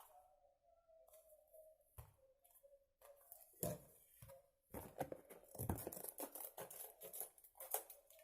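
Faint rustling, snipping and clicking of craft material being handled and cut by hand. The sounds are sparse at first and become busy, crackly handling from about three seconds in, over a faint steady tone.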